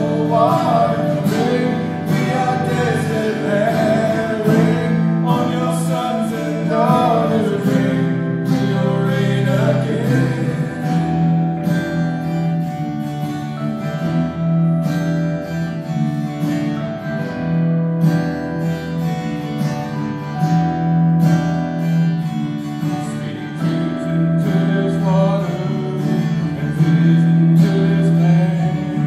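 Live worship song on two strummed acoustic guitars with a man singing; the voice drops out for an instrumental stretch in the middle and comes back near the end.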